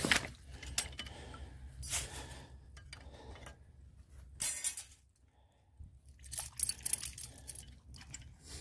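Steel MB750 foothold trap and its chain clinking and rattling in a handful of short bursts as the trap is handled and set.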